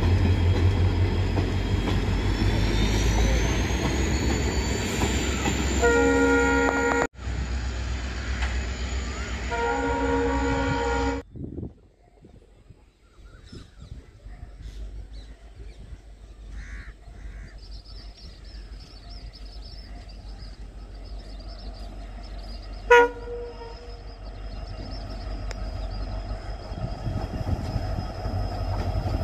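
A diesel train running close by, its engine rumbling, sounds a multi-tone horn twice, around six and ten seconds in. The sound then cuts off abruptly, and in the quieter stretch that follows a low rumble slowly builds, with one short horn toot partway through.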